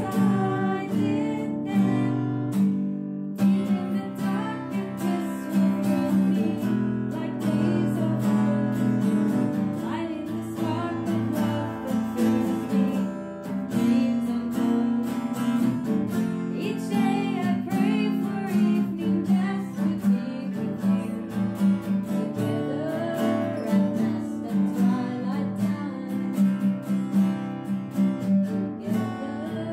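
Acoustic guitars strumming and picking a song, with a voice singing along. The music breaks off briefly about three seconds in, then carries on.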